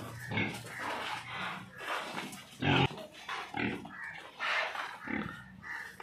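Indian pigs grunting in a string of short calls, with one louder call about two and a half seconds in.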